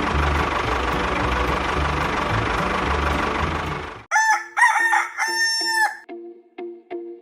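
Cartoon engine sound effect: a machine running with a pulsing low rumble that cuts off abruptly about four seconds in. A rooster crow in three parts follows, and then light music of short repeated notes.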